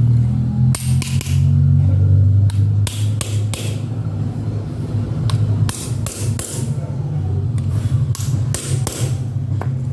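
A dozen or so sharp, irregular hammer taps over a steady low mechanical hum.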